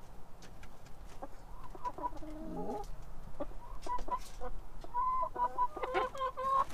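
Hen clucking: a run of short pitched calls that starts about a second in, with one lower call sliding down in pitch, and then comes more often toward the end.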